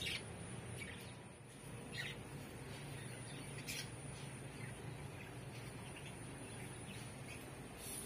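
Pet budgerigars chirping now and then, a few short chirps spread out, over a low steady hum.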